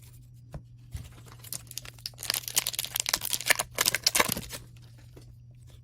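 Upper Deck hockey card pack wrapper being torn open and crinkled, a dense crackling that runs for about three seconds in the middle, then stops.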